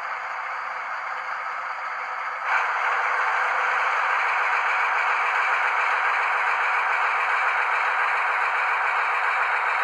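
Piko N-scale BR 221 model locomotive's sound decoder playing diesel engine sound through its tiny onboard speaker: a thin, steady noise without bass that gets suddenly louder about two and a half seconds in.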